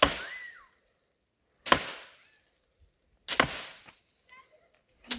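Axe chopping wood: four hard strikes about every second and a half, each dying away quickly.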